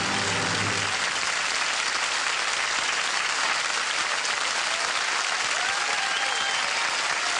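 Studio audience applauding steadily at the end of a comedy sketch, over the last held notes of music that stop about a second in.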